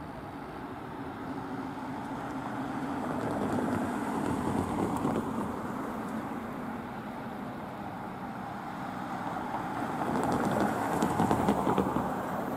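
Low rumble of a diesel train approaching in the distance, swelling about four seconds in and easing off. Near the end a second, louder swell comes in with a quick run of clicks.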